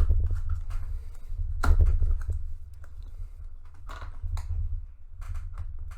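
Hands working at a cardboard box to get it open: a few scattered knocks and scrapes, over a steady low hum.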